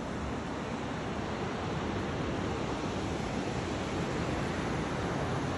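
Steady wash of ocean surf breaking along the beach below, mixed with some wind.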